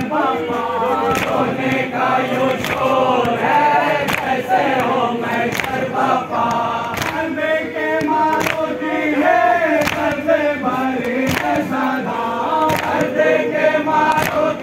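A crowd of men chanting a mourning lament (noha) together, many voices singing in unison, kept in time by sharp beats about every second and a half.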